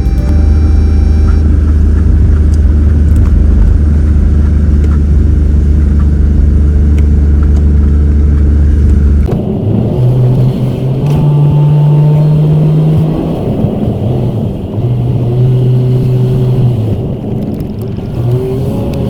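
A large engine running loud and steady. About nine seconds in the sound changes, and the engine's pitch then steps up and down in held stretches, as if it is being revved under load.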